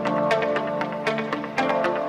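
Runway music with a steady electronic beat, about three to four beats a second, over sustained pitched chords.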